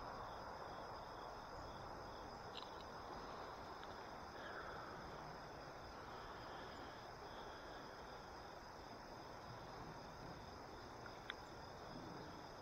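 Crickets chirping steadily in a high, pulsing trill over a faint steady hiss, with one sharp click about eleven seconds in.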